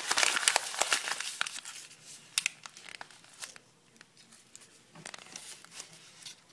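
A sheet of scrap paper crinkling and crackling as hands fold and crumple it tightly around a reel spool. The crackling is dense for the first second or so, then thins to scattered crinkles.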